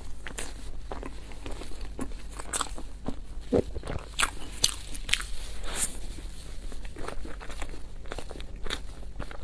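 Close-miked eating sounds: biting into and chewing a large piece of soft, sauce-covered bread, with irregular mouth clicks and smacks and a few louder bites.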